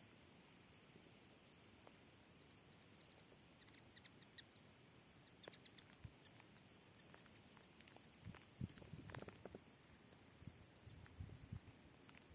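Faint light rain: scattered drops ticking, about one a second at first, then faster and less regularly from about halfway, over a soft steady hiss, with a few low soft thumps near the end.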